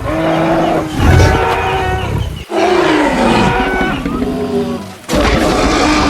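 Animal roars dubbed in as sound effects: several pitched, bending calls in a row, cut off abruptly twice.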